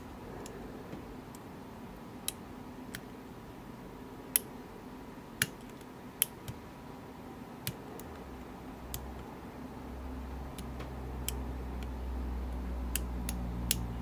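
Lock pick and tension wrench working the pin stack of an Illinois Duo padlock: about a dozen small, irregular metallic clicks and ticks as the pick probes the pins. A faint low hum comes in about two-thirds of the way through.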